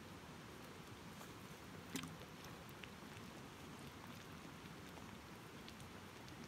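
Quiet ambience: a faint steady hiss, with one sharp click about two seconds in and a few fainter ticks after.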